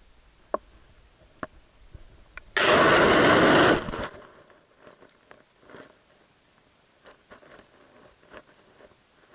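Underwater recording: a few sharp clicks, then a loud rush of water noise at the camera, starting about two and a half seconds in and lasting just over a second, followed by faint ticks and rustles.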